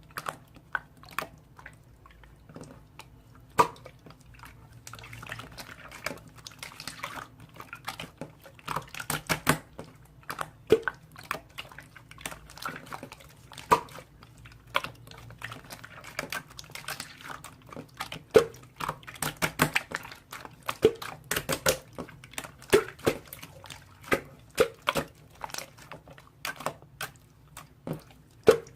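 Irregular light clicks and taps, close and dry, coming more often and louder in the second half, over a faint low hum.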